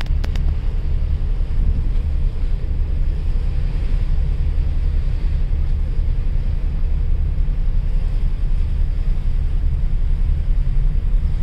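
Deep, steady rumble of a ship under way, mixed with wind noise on the microphone.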